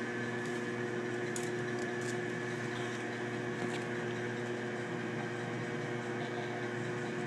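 1944 Sidney 16-inch engine lathe running steadily, its gears giving an even hum with a few faint ticks.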